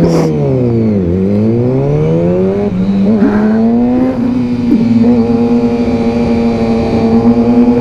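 Motorcycle running on the road: its pitch drops for about a second as it slows, climbs again as it speeds up, then holds steady at a constant speed.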